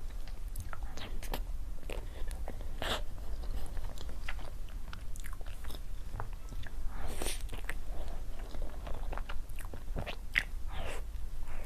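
Close-miked eating: a person biting and chewing food, with irregular small crackles and wet smacks, over a low steady hum.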